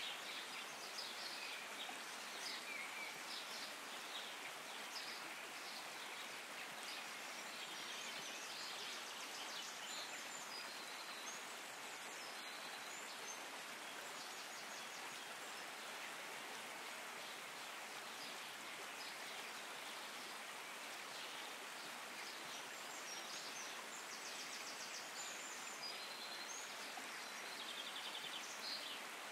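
Steady outdoor hiss with high chirping calls, likely from birds, coming and going throughout.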